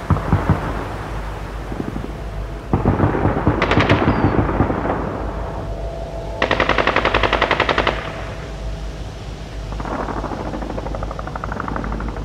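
Automatic gunfire. A few shots open the stretch, heavier firing follows from about three seconds in, and a rapid burst of about a dozen rounds a second runs from about six and a half seconds in. Lighter firing comes near the end.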